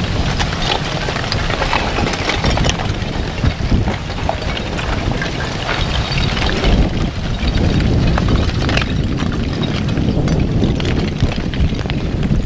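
Front of an aa lava flow creeping forward: cooling clinker blocks clinking, crackling and tumbling, heard as many small sharp clicks over a steady low wind rumble on the microphone.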